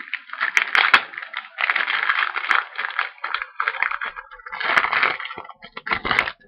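Crinkling and rustling of a trading card pack's plastic foil wrapper being handled and torn open, in irregular bursts with a few sharp clicks.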